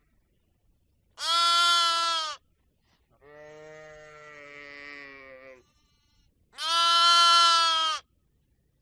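Farm animals bleating, three calls. Two loud, higher-pitched bleats of a little over a second each come about five seconds apart. Between them is a longer, quieter, lower-pitched bleat.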